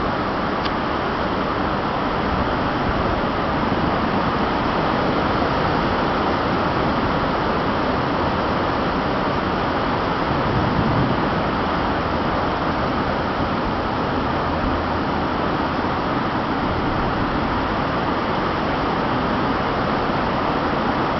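Storm wind making a steady, even rushing noise, with a brief low swell about halfway through.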